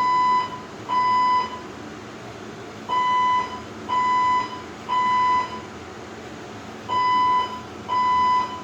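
Fire alarm sounding the three-beep evacuation pattern: steady high beeps about half a second long, a second apart, in groups of three with a longer pause between groups. The resident calls it a false alarm.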